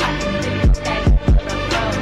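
Background music with a beat: sustained synth chords over deep kick drums that drop in pitch, three hits close together in the middle.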